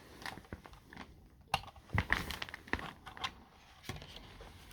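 Light plastic clicks and crinkling as the body-clip pins are pulled off a 1/24-scale RC crawler: a handful of separate sharp clicks among quieter rustling.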